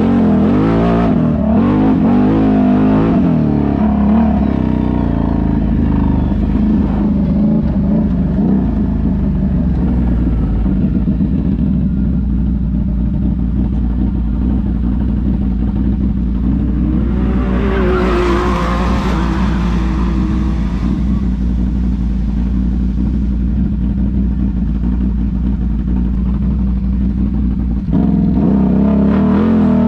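ATV engine running as it is ridden over sand and mud, its pitch rising and falling with the throttle in the first few seconds. A rushing hiss swells and fades about two-thirds of the way through, and the engine gets louder again near the end.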